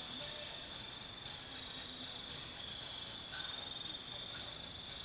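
Night insects chirring steadily, a continuous high trill.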